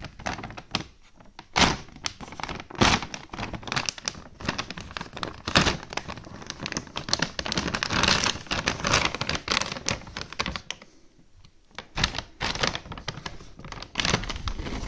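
Stiff plastic dog-food bag being crumpled and torn open by hand: loud crinkling and crackling with sharp snaps and thumps, densest about halfway through, then a short lull before more crackling near the end.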